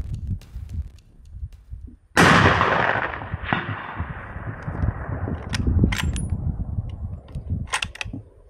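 A single shot from a 300 PRC rifle: a sudden loud blast about two seconds in that rolls away in a long echo lasting several seconds, with a second, weaker crack about a second after the blast. A low rumble, like wind on the microphone, runs underneath.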